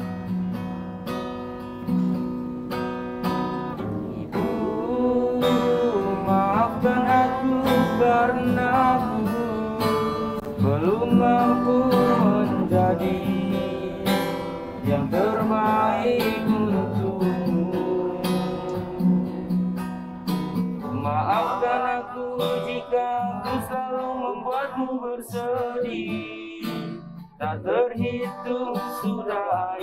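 Nylon-string classical guitar strummed and plucked, with a voice singing a slow song along with it.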